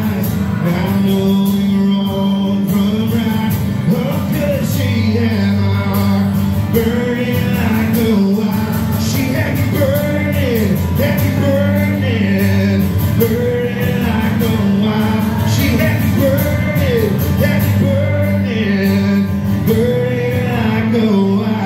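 Live acoustic country song: a male voice singing over a steadily strummed acoustic guitar.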